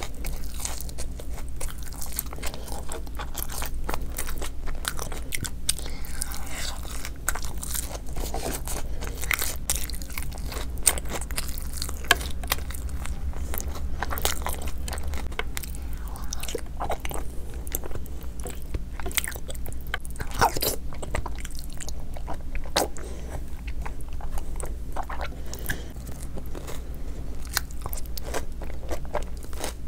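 A person biting and chewing food, with frequent crisp crunches and sharp clicks throughout, over a steady low hum.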